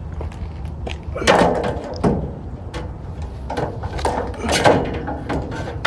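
Several separate clunks and knocks of metal tool cart and toolbox parts being handled during assembly, over a steady low hum.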